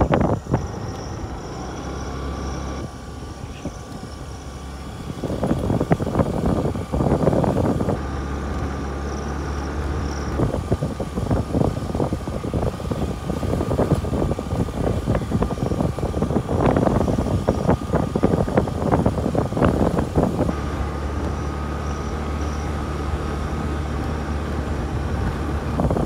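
A motor vehicle driving over a rough off-road track: a steady low engine hum, with bursts of rattling and jolting from the bumps several times.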